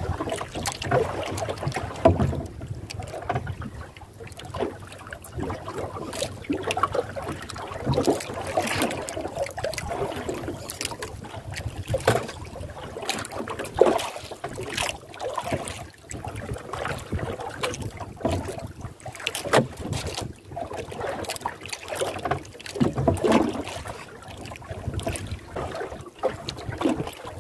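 Sea water slapping against the hull of a small outrigger boat, with irregular knocks and splashes and wind on the microphone.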